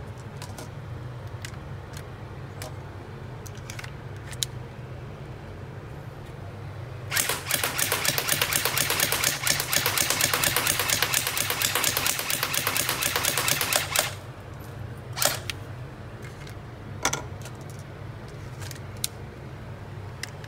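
CYMA CM030 electric airsoft Glock firing on full auto: a rapid, even clatter of shots lasting about seven seconds, starting about seven seconds in. Before and after it come scattered clicks and clacks of the pistol and magazine being handled, over a steady low hum.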